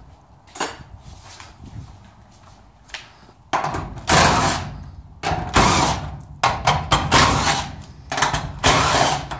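Cordless Craftsman drill-driver spinning out the screws of a garage door's middle section hinge in about seven short runs, starting a few seconds in. Before it come a few small clicks of tools being picked from a bag.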